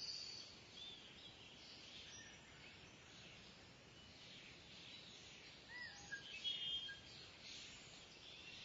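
Faint outdoor ambience with scattered short, high bird chirps, a small cluster of louder calls about six and a half seconds in.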